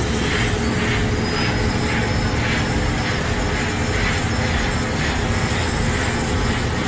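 Heavy diesel machinery running steadily under load: a loud, continuous engine drone and rumble with an even pulsing about twice a second.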